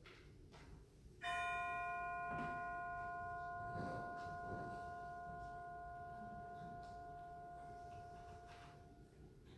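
A single bell struck once about a second in, ringing and slowly fading for about eight seconds: a memorial toll after a name of the dead is read.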